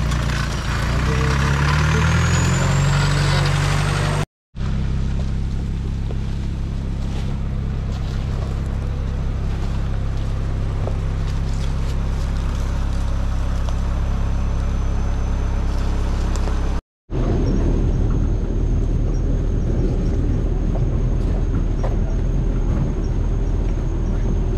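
Off-road 4x4 engines in three clips, split by two sudden cuts to silence. First a classic red jeep's engine revs with its pitch climbing. Then a 2021 Mahindra Thar's engine runs steadily, and last the Thar's engine runs as it rolls down a rough stone track.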